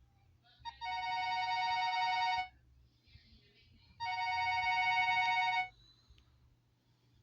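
Alcatel OneTouch Big Easy Flip phone playing a stock ringtone through its speaker: an electronic imitation of a classic telephone ring, two steady tones together. It rings twice, each ring about two seconds long, with a pause of about a second and a half between.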